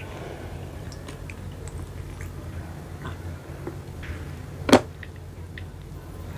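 Small clicks and taps of snail shells and a toothpick as spotted babylon snails (keong macan) in balado sauce are picked out of their shells, with one loud sharp click about three-quarters of the way through. A low steady hum lies underneath.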